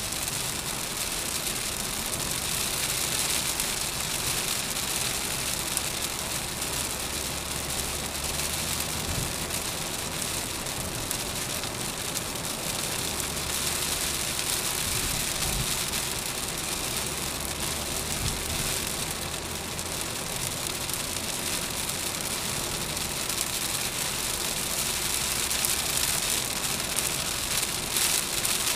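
Heavy rain drumming on a car's windshield and roof, heard from inside the cabin, over a steady low rumble of tyres on the wet road. A few brief low thumps come through in the middle.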